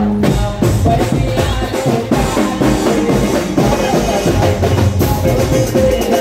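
Live band playing an instrumental break of a Marathi song: a melody line over a drum kit with bass drum and snare keeping a steady beat.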